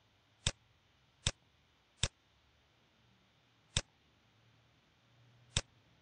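Five single computer mouse clicks, spaced irregularly between about one and two seconds apart, with near silence between them.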